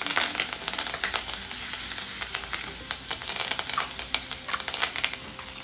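Curry leaves and cumin seeds sizzling and crackling in hot ghee as a tempering (tadka) fries in a kadhai, stirred with a spatula. The crackling thins a little near the end.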